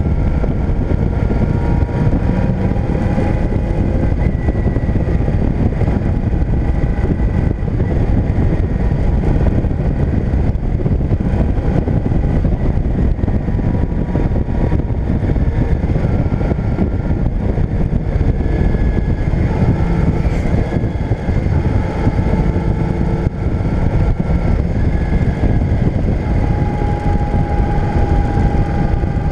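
Motorcycle engine running at road speed, heard from the moving bike under a heavy rush of wind on the microphone. The engine's note holds steady and shifts in pitch now and then.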